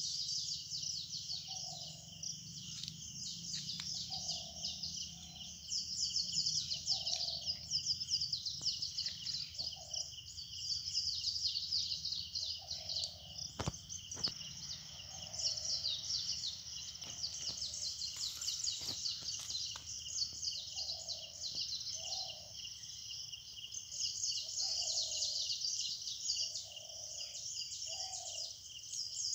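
Forest morning chorus: a dense, unbroken high-pitched chirping of birds and insects, with a lower call repeated every second or so and a single sharp click about halfway through.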